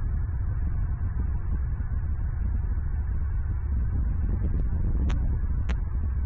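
Steady low outdoor rumble picked up by the nest-camera microphone, with two short, sharp high chirps about half a second apart some five seconds in.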